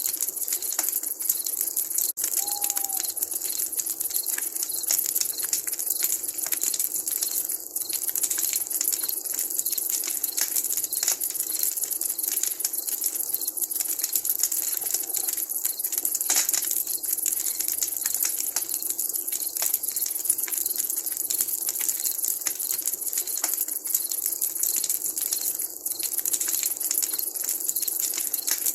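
Wood campfire crackling with a constant patter of small pops over a steady high hiss. One short, falling owl call sounds about two seconds in.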